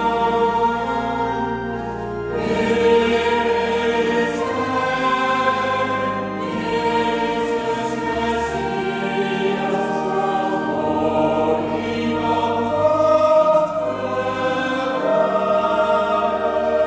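A small mixed choir singing a canticle in unison, with organ accompaniment.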